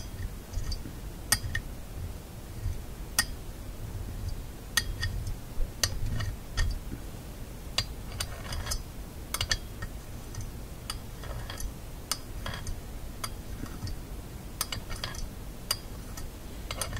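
Sharp metallic clicks at irregular intervals, some in quick pairs: a horseshoe magnet snapping onto and being stroked slowly along the Philco shadow meter's weakened magnet to re-magnetize it.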